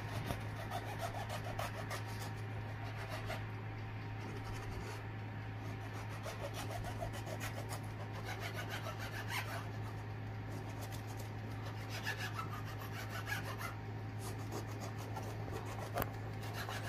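A knife sawing through a crusty loaf of bread on a wooden cutting board: fast, repeated rasping strokes of the blade through the crust and crumb. A steady low hum runs underneath.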